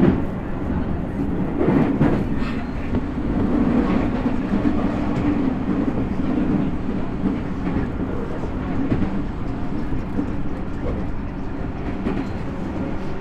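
Tokyu 5050 series 4000-number electric train running, heard from inside the car: a steady rumble of wheels on rail, with a couple of rail-joint clacks in the first two seconds.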